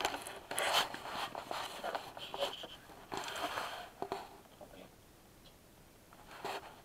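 Rustling and scuffing handling noise as the camera and things on the carpeted floor are moved, in several uneven bursts over the first four seconds, with a brief thin squeak about two and a half seconds in.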